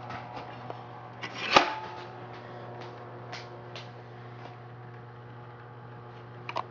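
Smith Corona Electric 12 electric typewriter with its motor running in a steady hum, a few scattered key clicks, and one loud mechanical clack about a second and a half in that rings briefly.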